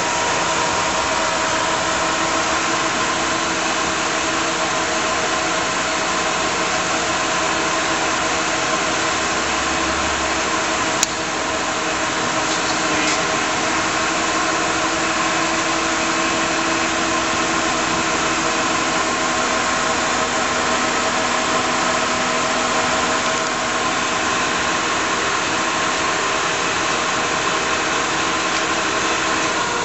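Monarch 10EE lathe running: the steady hum and whine of its motor-generator drive and turning spindle, several steady tones over a hiss. A single sharp click about eleven seconds in.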